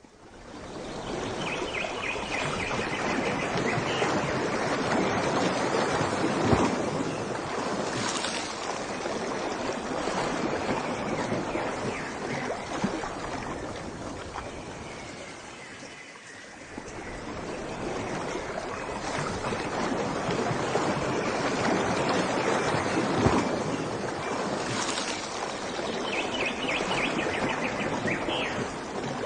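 Surf washing in and drawing back, a rushing water noise that swells and fades twice, with faint high chirps near the start and again near the end.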